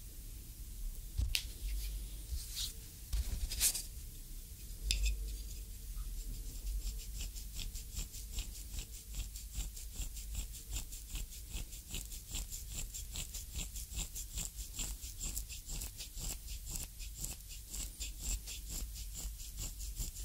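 A wooden reflexology stick rubbing in short, quick strokes across the oiled sole of a bare foot, about three strokes a second, recorded close up with binaural microphones. A few separate handling clicks come in the first seconds, before the rubbing starts.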